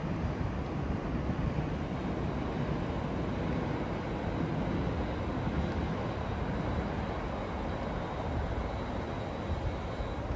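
Steady low rumble of city vehicle noise, with a faint high steady tone in the second half.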